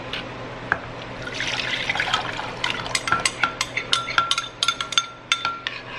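Thin sauce poured from a ceramic bowl into a stainless steel saucepan, followed by a metal spoon scraping and tapping the bowl, a quick run of clinks with a short ringing note.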